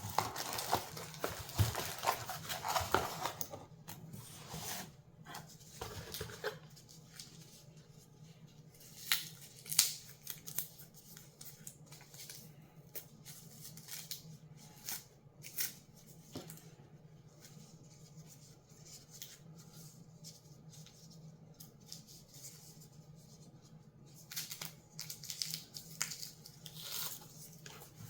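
Packaging being cut and torn open: snipping, tearing and crinkling of wrapping paper, busiest in the first few seconds and again near the end, with scattered sharp clicks and rustles in between.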